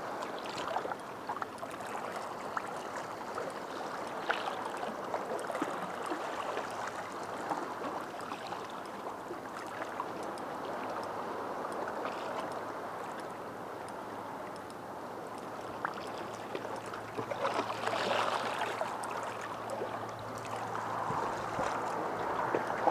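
Small waves washing and lapping against shoreline rocks, a steady wash of water with scattered light clicks and a louder surge about eighteen seconds in.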